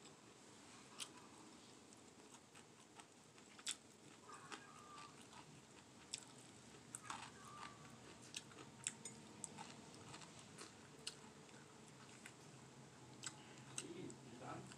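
Quiet close-up eating sounds: chewing, with scattered short, sharp mouth clicks and smacks as fried fish and salad are eaten.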